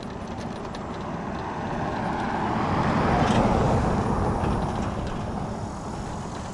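A car passes on the road alongside; its tyre and engine noise swells to a peak about three seconds in and then fades away. Under it runs a steady low rumble from the mobility scooter rolling over grass.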